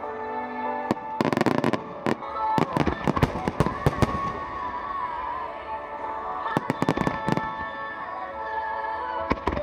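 Fireworks bursting and crackling in rapid clusters, a dense run about a second in and another shorter run around six and a half seconds in, over steady background music.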